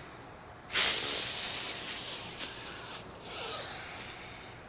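A woman taking deep, exaggerated breaths: a loud, hissing breath through pursed lips lasting about two seconds, then a second, softer breath.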